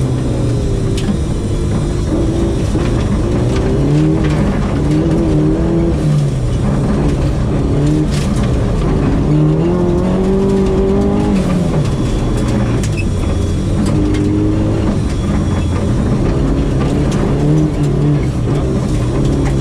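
Mazda 323 GTR's turbocharged four-cylinder engine heard from inside the cabin, its pitch rising and falling again and again as the rally car accelerates and lifts off, with one longer climb in revs about halfway through. Under it runs a steady noise of tyres on gravel.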